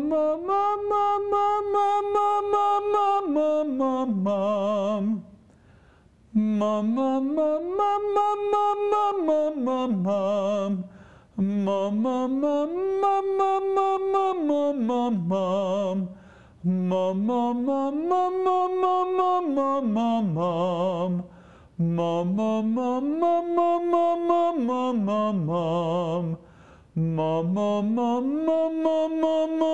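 A man singing a vocal exercise on a vowel: six phrases, each sliding up to a held note and then gliding back down with a wavering pitch. Each held note is a little lower than the last. This is a voice-teacher's demonstration of releasing into the upper voice and leaning down through the vocal break.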